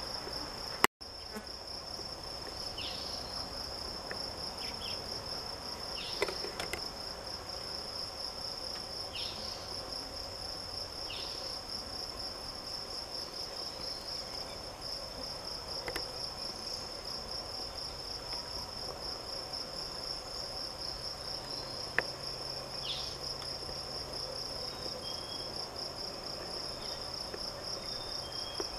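Steady outdoor insect chorus, a continuous high pulsing trill, with a few short high chirps scattered through it. A sharp click about a second in.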